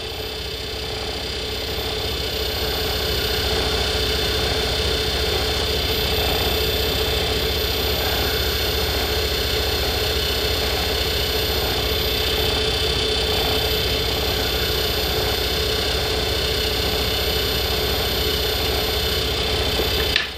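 Small lathe running steadily while 1200-grit paper is held against the spinning nickel silver male ferrule of a bamboo fly rod, sanding it down to size for a slide fit. The steady hum and whine grow a little louder over the first few seconds and drop abruptly near the end.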